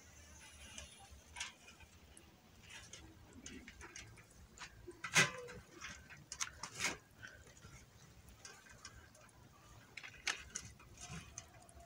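Hands raking through a heap of larvae frass on a wire-mesh sieve: faint, irregular rustles and crackles, with two louder sharp clicks about five and seven seconds in.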